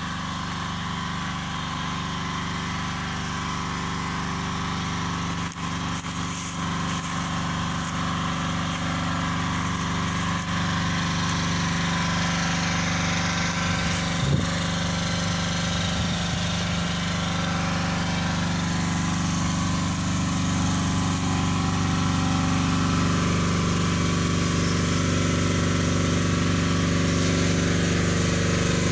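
Generator engine running at a steady speed, its hum growing gradually louder, with a brief knock about halfway through.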